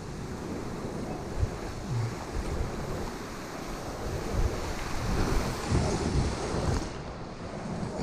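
Rushing whitewater of river rapids, with wind buffeting the microphone in low rumbles and a few louder knocks through the middle.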